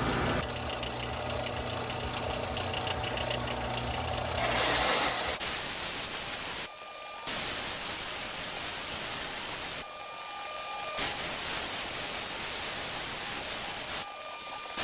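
Belt sander running with a steady motor hum, then an exhaust manifold flange pressed against the belt, giving a steady abrasive hiss as the warped flange is ground flat. The grinding breaks off briefly a few times.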